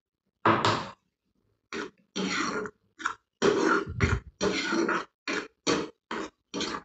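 Thick tomato chutney spluttering and popping in a hot oiled pan as a ladle stirs it, in about a dozen short bursts roughly every half second.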